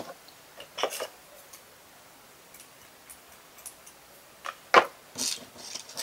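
Light clicks and rustles of hands handling craft pieces and fabric on a tabletop, in a short cluster about a second in and a busier one near the end.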